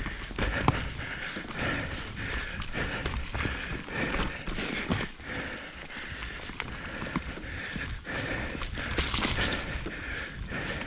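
Mountain bike descending a forest dirt trail at speed: tyres rumbling over the dirt, with the bike rattling and knocking irregularly as it hits roots and bumps.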